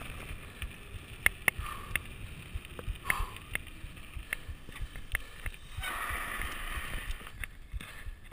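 Mountain bike rolling over a gravel road: steady tyre rumble with frequent sharp irregular rattles and ticks from the bike, and a longer stretch of hiss about six seconds in.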